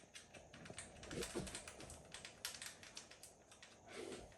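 Rapid small clicks and ticks from hands working at a bicycle wheel's valve stem, threading the valve nut down.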